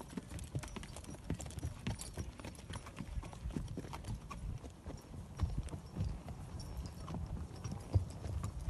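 Horses' hooves clip-clopping on a dirt trail: irregular hoofbeats of several horses.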